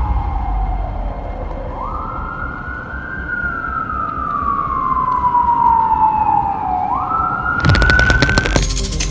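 Emergency vehicle siren wailing: a single tone slides slowly down and up, twice jumping quickly back up in pitch, over a low rumble. Near the end a fast burst of clicks comes in and the siren cuts off suddenly.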